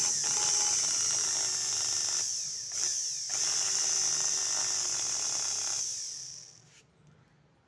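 Bajaj mixer grinder's brushed universal motor running fast with a high-pitched whine and hiss, its shorted armature sparking at the commutator brushes. The sound dips briefly twice a couple of seconds in, then winds down and stops about six seconds in.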